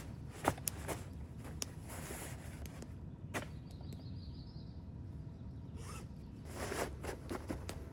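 Camp handling noises: scattered sharp clicks and a couple of short rasping, zipper-like rustles over a steady low outdoor rumble.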